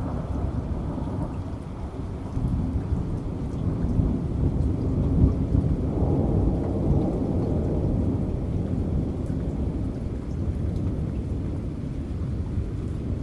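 Steady rain with a long, low rumble of thunder that swells a couple of seconds in, is loudest about five seconds in, and slowly dies away.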